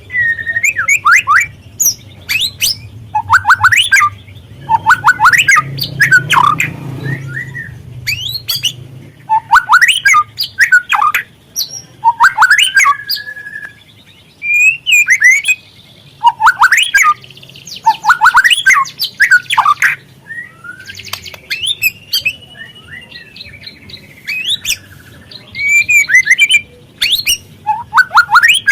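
Juvenile white-rumped shama (speckled 'trotol' murai batu) giving rapid clusters of sharp chirps and squeaky twittering calls, a loud burst every second or two, as a lure recording to prompt shamas to sing.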